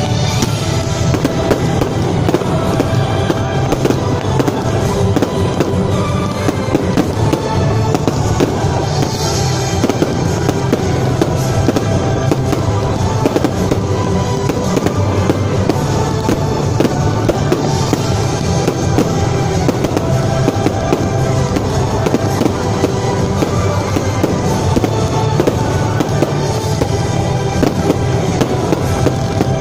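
A dense, unbroken barrage of firework bangs and crackling, from ground fountains and aerial shells bursting, with music playing underneath.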